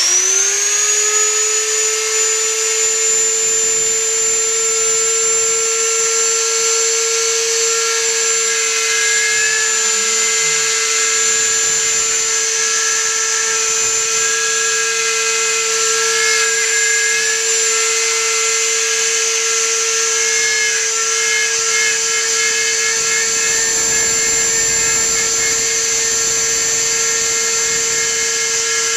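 Homemade CNC router spindle spinning up with a rising whine that levels off about a second in. It then runs at a steady high whine while its bit carves into a pine board.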